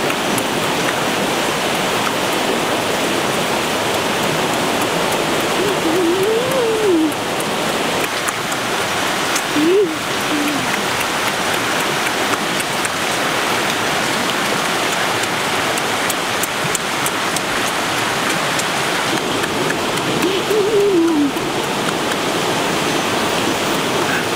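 Steady rush of a shallow, rocky river running fast. Three times a man's voice makes a short hum that rises and falls.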